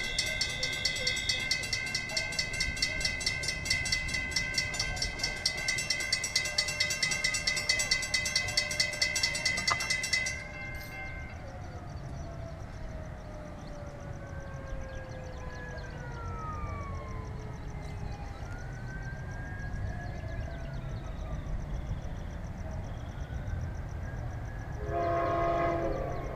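Amtrak train passing at speed: rapid, even clicking of wheels over the rails with steady whining tones, cutting off suddenly about ten seconds in. A quieter low rumble with gliding whines follows, and a train horn sounds briefly near the end.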